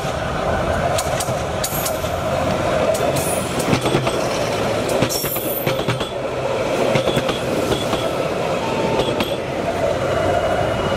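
Bangladesh Railway DEMU commuter train passing close by: a steady rumble of wheels on the rails, with scattered clicks and short metallic squeals from the wheels.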